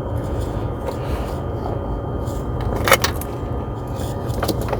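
Steady low rumble of background machinery, with one sharp click about three seconds in.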